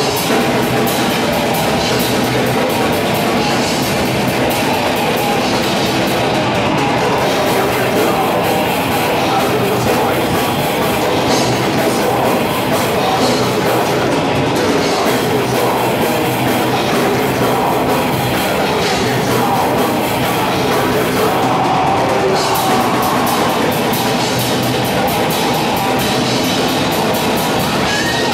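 Live heavy rock band playing loud and without a break: a drum kit with busy cymbal strokes, amplified instruments and a vocalist on the microphone.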